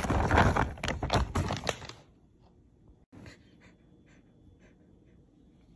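A plastic dog-treat pouch crinkling loudly as it is handled, in many irregular crackles. These stop about two seconds in, leaving only faint light taps.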